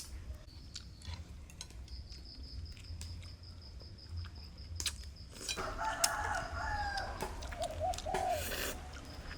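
A rooster crowing once, starting about halfway through and lasting about three seconds, its pitch wavering and falling away at the end.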